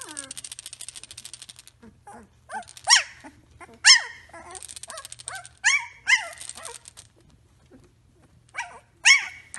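Three-week-old Samoyed puppy yipping: about five short, high calls, each dropping in pitch, with rapid raspy buzzing between them.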